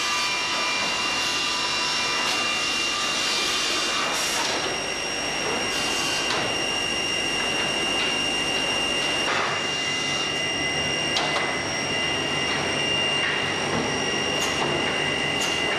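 Woodworking machine running with a steady high-pitched whine over a mechanical hum, and wooden slats knocking against the machine every second or two.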